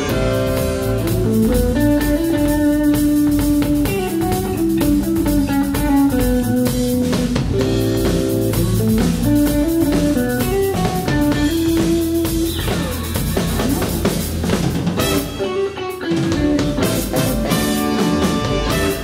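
Live band playing: a horn section of trumpet, tenor saxophone and alto saxophone plays a line of held notes over electric guitar, electric bass and drum kit.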